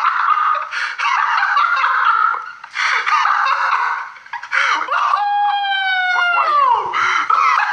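A man laughing loudly and hard in high-pitched bursts, ending about five seconds in with one long held squeal that slides down in pitch.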